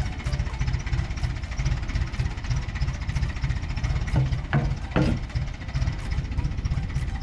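Bulldozer's diesel engine running with a steady, rapidly pulsing low throb. Three sharp knocks come close together a little past the middle.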